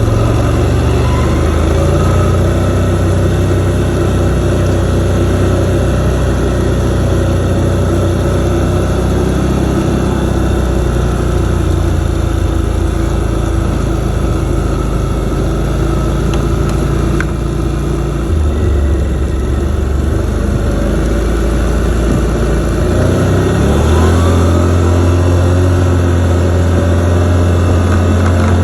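V-twin ATV engine running under way, pulling two loaded sleds. Its note changes partway through and rises a few seconds before the end as it picks up speed.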